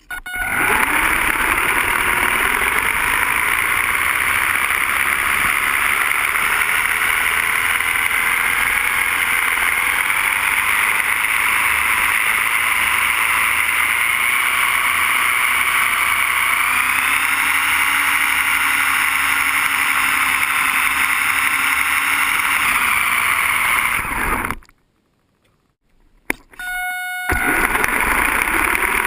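Small RC car heard from on top of it as it drives: a steady motor whine whose pitch rises and falls over constant rolling noise. The sound cuts out almost completely for about two seconds near the end, then comes back.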